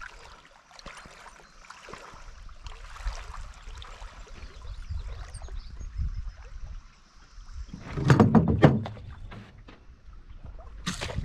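Knocks and scrapes on a canoe hull over a low rumble of moving water. About eight seconds in comes a loud burst of knocks and thuds, and near the end one sharp click.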